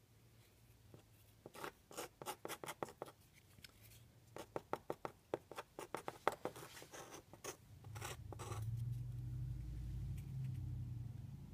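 Quick scratching strokes of a small hand tool against the painted surface, several a second, in two runs. A steady low hum follows near the end.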